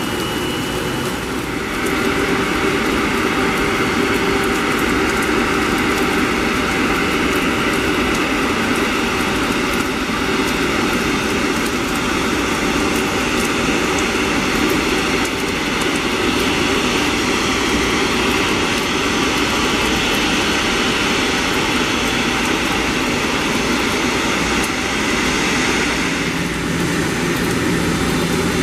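Airbus A330 jet engines running at taxi power, a steady rush with a faint whine, growing louder about two seconds in as the airliner taxis closer.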